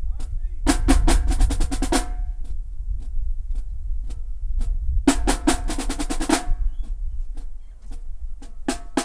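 Marching band drumline playing a cadence: steady snare taps over heavy bass drum, broken by two bursts of fast drum rolls, about a second in and again about five seconds in, and a third starting near the end.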